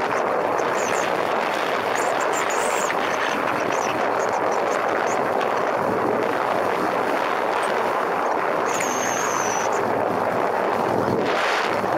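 Motorcycle riding at speed: a steady rush of wind on the camera microphone mixed with engine noise. A brief high whistle comes about nine seconds in, and a short, louder gust of rush comes near the end.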